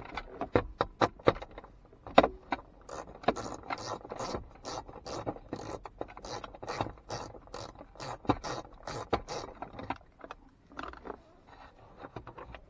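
Ratchet with a 10 mm socket clicking in quick back-strokes as it backs out a small dash screw, about three clicks a second. The clicking thins out and stops about ten seconds in.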